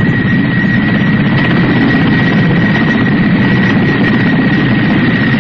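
Kamov coaxial-rotor helicopter flying low past, its rotors and turbine engines making a steady, loud noise with a high whine over it.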